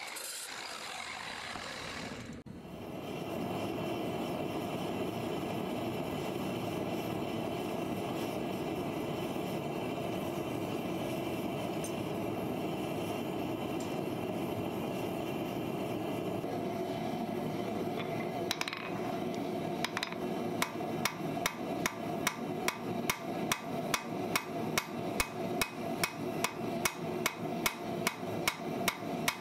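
An angle grinder cuts through a steel farrier's rasp, sending out sparks, and stops about two seconds in. A forge burner then roars steadily. From about twenty seconds in, a hammer strikes the red-hot rasp on an anvil about twice a second, with the forge still running behind it.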